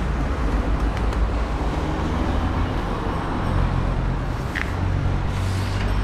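City street traffic: a steady hum of cars and engines running along the road.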